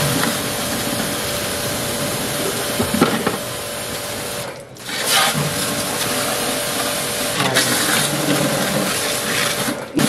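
Electric pressure washer running and spraying water, a steady motor whine under the hiss of the spray, breaking off briefly about halfway through and starting again.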